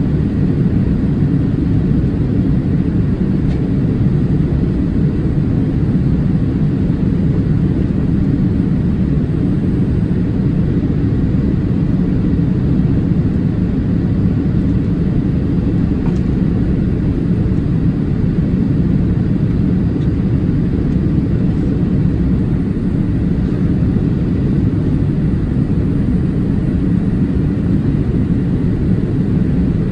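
Steady in-cabin noise of a Boeing 787-8 in flight during descent, heard from a seat over the wing: an even, low rumble of engines and airflow that does not change.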